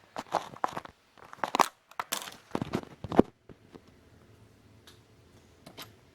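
Handling noise: a quick, irregular run of crackling, rustling scrapes and clicks for about three seconds, then quiet with a faint low hum and a single click near the end.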